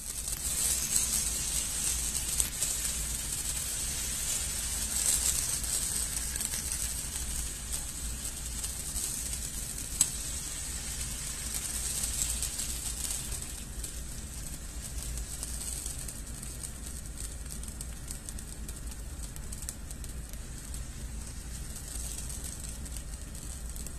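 Appam batter sizzling and crackling in a hot small nonstick pan over a gas flame as its thin edges crisp into lace, a little louder in the first few seconds and easing off after. One sharp click about ten seconds in.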